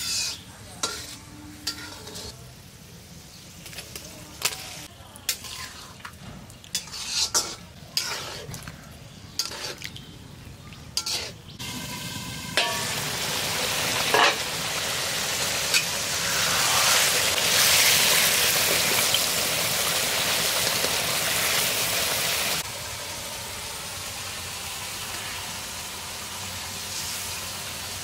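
Spatula scraping and knocking in a cooking pan as spice paste is stirred in oil. Then, from a little before halfway, a steady sizzle of frying that drops sharply to a quieter sizzle about four-fifths of the way in.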